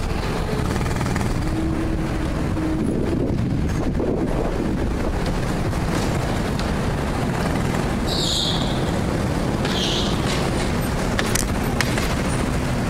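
Go-kart ride noise picked up by a helmet-mounted camera's microphone: a steady, dense rumble with wind buffeting. A brief hum comes in about two seconds in, and two short hisses and a few clicks come near the end.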